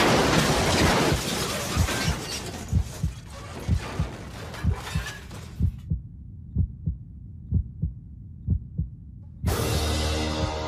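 Loud rushing crash noise, fading over the first few seconds and cutting off about six seconds in. Under it and then alone, a heartbeat sound effect: slow lub-dub double thumps about once a second. Music starts near the end.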